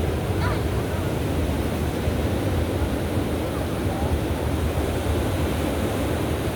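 Ocean surf washing onto a sandy beach as a steady, full rush, with faint voices of people on the beach mixed in.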